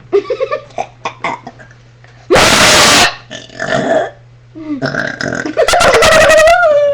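Deliberately forced burps from girls: a loud, harsh, rasping one about two seconds in, then a long burp with a wavering pitch near the end, with short vocal sounds in between.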